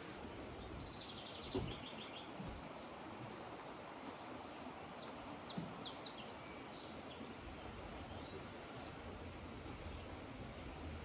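Birds singing and chirping over a steady background hiss: a rapid trill that falls in pitch about a second in, then scattered short high chirps. A couple of brief low thumps stand out.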